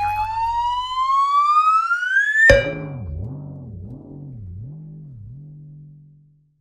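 Cartoon sound effect: a whistle-like tone sliding steadily upward for about two and a half seconds, cut off by a sharp knock, then a low wobbling tone that fades away.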